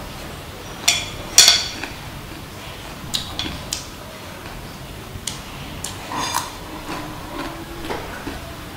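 Wooden chopsticks clinking and tapping against a ceramic plate several times while picking up food, the two loudest, ringing clinks about a second in.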